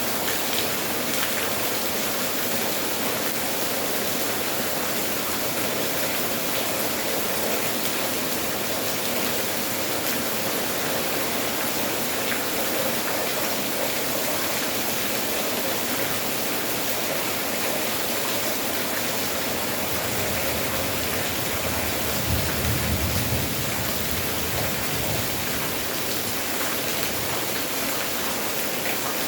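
Steady, heavy rainfall, an even rushing hiss with no let-up. About two-thirds of the way through, a short low rumble rises under the rain for a second or two.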